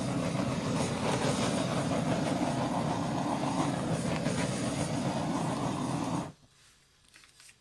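Handheld gas torch burning with a steady hissing flame while being passed over wet acrylic paint to pop air bubbles; it shuts off suddenly near the end.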